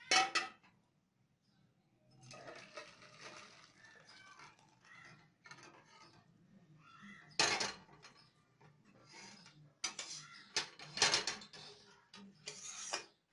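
Aluminium cookware knocking and scraping on a gas hob: a saucepan set down with a clank, thin dal poured into it from a karahi, then several sharp metal clanks and scrapes of the karahi against the pot.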